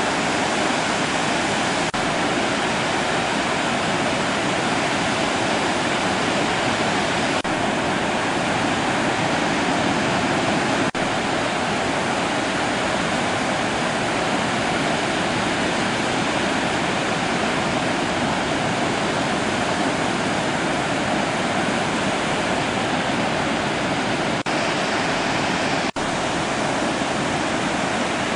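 Steady, unbroken rush of surf and moving water, with no single wave crashes standing out. It briefly drops out a few times where the recording is cut.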